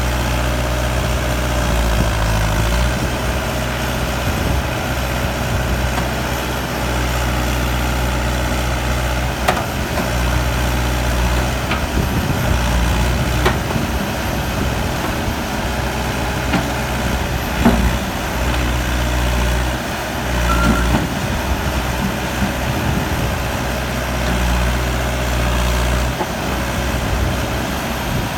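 JCB 215 backhoe loader's diesel engine running steadily, its note changing several times, with a few short knocks and clanks.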